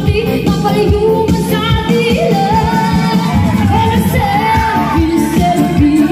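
Live pop song: a woman singing into a microphone over electronic keyboard accompaniment with a steady beat. She holds several long notes in the middle.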